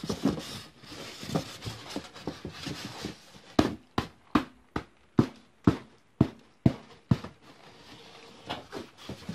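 A styrofoam shipping box being handled inside a cardboard carton: rustling and scraping, then a run of about nine sharp taps, roughly two or three a second.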